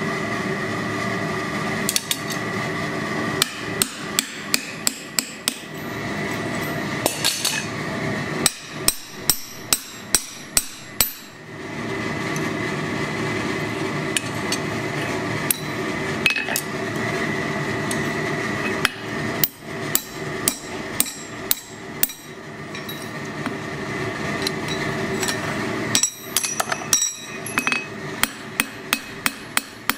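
A blacksmith's hand hammer striking hot steel on an anvil, in quick runs of blows with pauses between. Some of the blows drive a punch through the piece over a bolster plate. A steady hum runs underneath.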